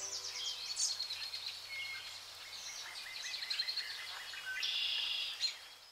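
Several birds chirping and singing, short calls and quick trills overlapping, with a denser buzzy call late on.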